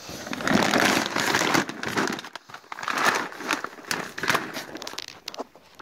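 A large bag of dry cat food crinkling and rustling as it is gripped and lifted out of a cardboard box. The noise is loudest in the first two seconds, then comes in shorter bursts.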